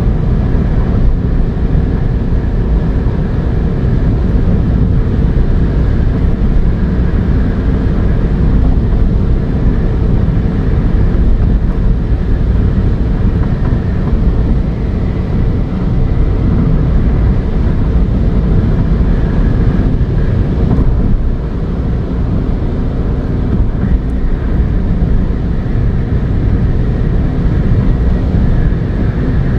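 Ford Fiesta 1.0 EcoBoost three-cylinder turbo petrol car driving at speed, a steady rumble of engine and road noise with a faint steady whine. The engine runs normally, its lost performance restored by repair.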